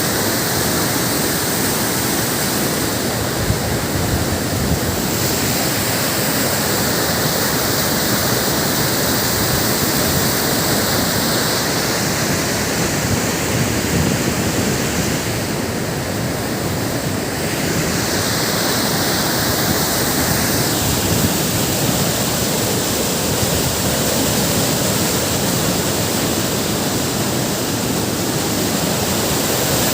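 Waterfall: the steady rush of water falling and splashing.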